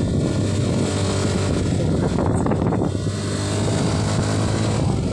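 Steady running of a motor vehicle on the move: a constant low engine hum under road and wind noise.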